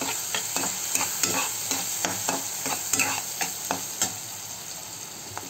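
Chopped onions frying in oil in a non-stick pan, with a steady sizzle, while a spatula stirs them in quick scraping strokes against the pan; the strokes thin out about four seconds in.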